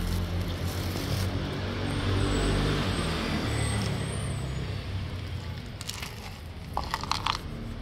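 A motor vehicle's engine rumbling past, loudest a couple of seconds in and then fading away. A brief clatter of clicks comes near the end.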